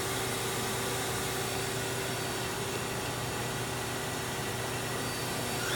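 Steady mechanical hum with a held low tone under an even hiss, unchanging throughout.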